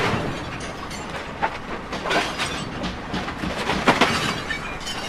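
Pallet stretch-wrapping machine running: a steady rattle and clatter, with sharp knocks about one and a half and two seconds in and a louder one near four seconds.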